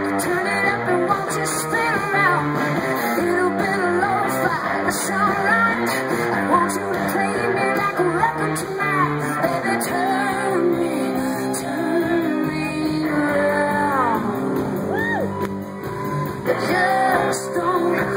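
Live rock band playing: a woman sings the lead over electric guitars and drums.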